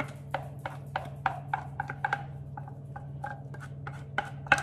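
A spatula tapping and scraping against the inside of a pot in quick repeated strokes, about four or five a second, as thick chickpea-flour batter is scraped out onto a baking tray.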